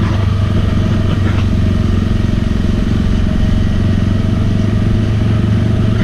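Engine of a Polaris Ranger side-by-side carrying a spray rig, running steadily at an even speed with a constant low drone while it drives across a field.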